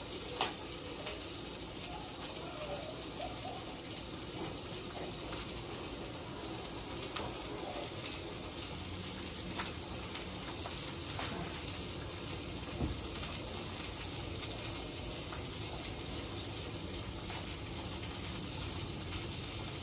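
Salmon fillets frying in butter in a pan, a steady sizzle, with a few faint clicks and knocks now and then.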